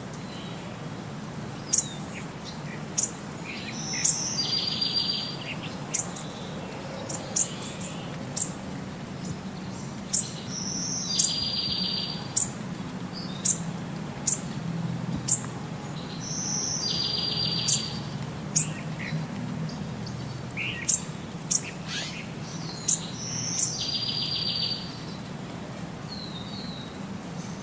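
Birds chirping: short, sharp, high chirps scattered throughout, with a longer trill about every six and a half seconds, in a pattern that repeats like a looped background recording.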